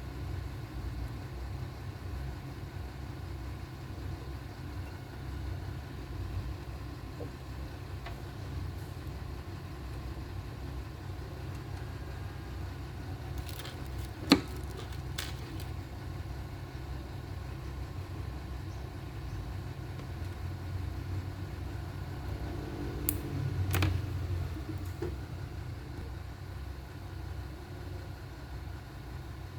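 Steady low rumble of running machinery, with a few sharp clicks: one loud click about halfway through, and two more with a brief low thump a little later.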